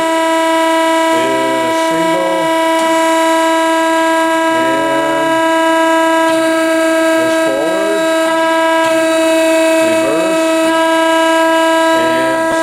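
Marvel V10A2 vertical band saw running under power with its hydraulics on, giving a loud, steady, high-pitched whine.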